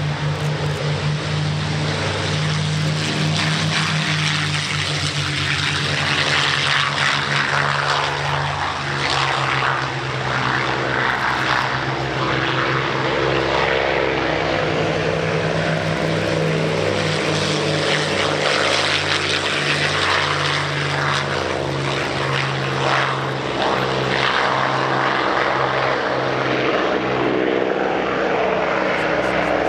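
Several P-51 Mustangs' Packard Merlin V-12 engines running steadily as the fighters taxi. It is a continuous deep propeller-engine drone that swells and eases slightly as the aircraft pass.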